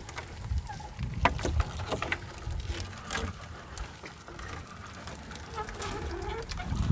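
A gill net being hauled by hand into a wooden outrigger boat: scattered sharp knocks and clicks of the net and its weights against the hull, over a steady low rumble of wind and water.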